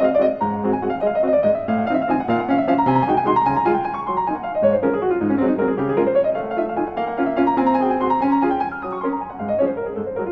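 Background piano music, with quick runs of notes falling and then rising in pitch about halfway through.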